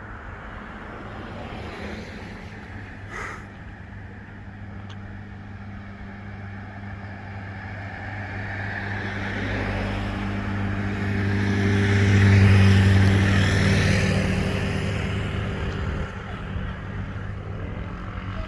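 A motor vehicle's engine hum, growing steadily louder to a peak about two-thirds of the way through and then fading, as of a vehicle passing close by.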